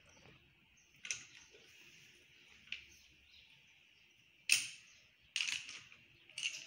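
Socket wrench working on a cylinder head's bolts: a few separate sharp metallic clicks, the loudest about four and a half seconds in, then a quicker run of clicks near the end as the head bolts are tightened down.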